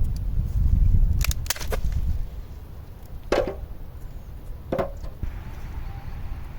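Wind rumbling on the microphone, then three quick light clicks followed by two heavier wooden knocks about a second and a half apart.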